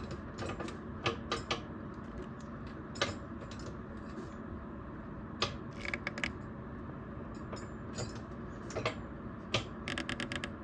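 Scattered light clicks and taps from handling hard objects, several in quick clusters, over a steady low background hum.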